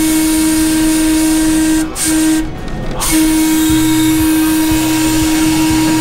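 Trolley car's air whistle blown in three blasts: a long one, a short one, then another long one. It is a steady pitched tone over a hiss of air.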